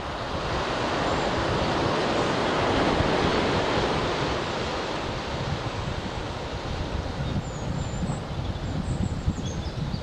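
Ocean surf washing in among shore rocks, one wave rush swelling over the first few seconds and slowly easing, with wind rumbling on the microphone. A few faint bird chirps come near the end.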